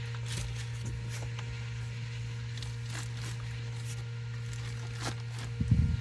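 Soft rustling and scraping of curtain material being handled and fitted into an SUV's rear window, over a steady low hum, with a louder low bump near the end.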